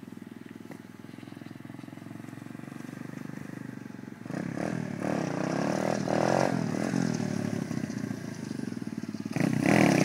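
125cc pitbike engine, quiet and steady at first. About four seconds in it starts revving hard, its pitch rising and falling through the gears. It gets louder again near the end as the bike comes up on its back wheel close by.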